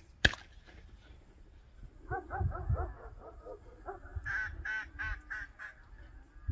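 Quick runs of duck-call quacks, a lower series followed by a higher one, after a single sharp crack about a quarter second in.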